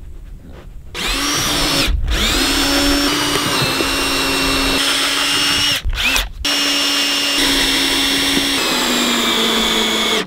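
Cordless drill driving screws into a plywood tabletop, its motor whining steadily from about a second in, with three short breaks between runs and the pitch shifting a little from run to run.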